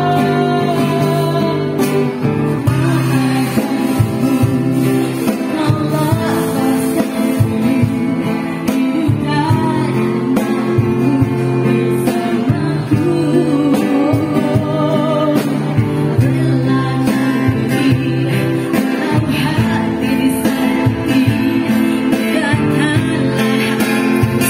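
Live band music: a woman singing a melody into a microphone, accompanied by strummed acoustic guitar and a small drum kit, with snare hits and cymbals keeping the beat.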